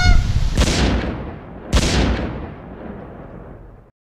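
A Canada goose honks once at the very start, then two shotgun shots ring out about a second apart, each echoing and fading slowly. The sound cuts off abruptly near the end.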